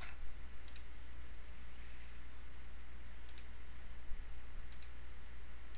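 Computer mouse buttons clicking: three pairs of short, sharp clicks spread across a few seconds, over a steady low hum.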